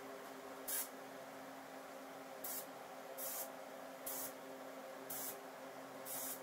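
Small HVLP spray gun fired in six short test bursts of hissing spray, about one a second, over a faint steady hum. The gun is sputtering a bit, a sign that the air pressure and fan pattern need checking.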